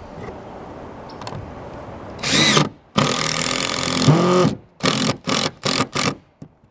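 Cordless impact driver driving a screw through a wooden board into a metal roof. It starts with a short burst about two seconds in, runs loud for about a second and a half, then gives about five quick trigger bursts as the screw is seated.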